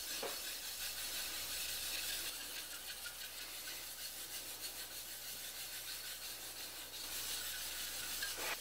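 Two wet 1,000-grit Norton waterstones rubbed face to face in circles, making a steady wet scraping. The stones are being lapped against each other to flatten them, grinding down the high spots to meet the low ones.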